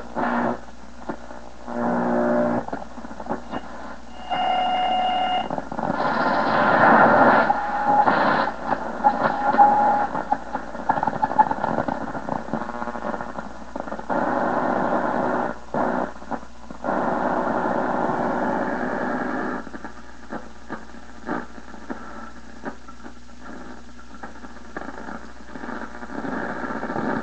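1936 RCA Victor 5T5 five-tube radio on a shortwave band: hissing static with thin heterodyne whistles, a high one about four seconds in, and signals swelling and fading in stretches of a few seconds. From about twenty seconds in it settles to quieter crackling static.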